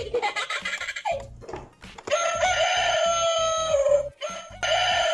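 Electronic animal-sound toy piano playing a recorded rooster crowing twice, once about two seconds in and again about four and a half seconds in, as its animal buttons are pressed.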